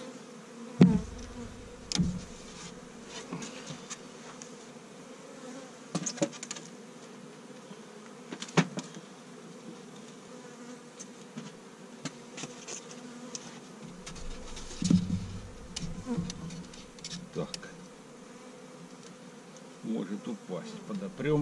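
Carniolan honeybees buzzing steadily around an open hive, with several sharp wooden knocks as frames and a dummy board are shifted in the hive body, the loudest about a second in.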